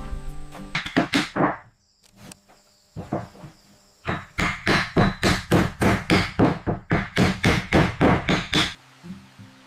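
Rapid, evenly spaced blows of a hand tool chopping or hammering, about three strikes a second: a short run of four near the start, a pause, then a longer steady run that stops shortly before the end.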